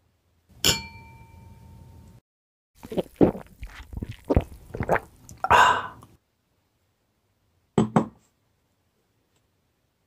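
A wine glass is struck once and rings for about a second and a half, then liquid is gulped and slurped from it for about three seconds, followed by two quick taps as the glass is set down.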